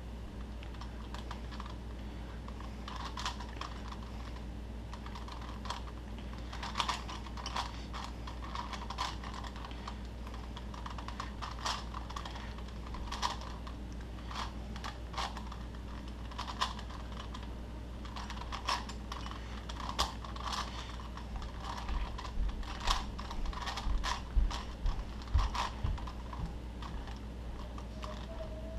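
Plastic Rubik's cube being turned by hand: irregular clicking and clacking of the layers, in short flurries that come thicker toward the end, over a steady low hum.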